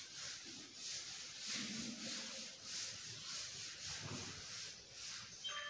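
Chalkboard duster rubbing chalk off a chalkboard in back-and-forth strokes, a scratchy hiss at about two strokes a second.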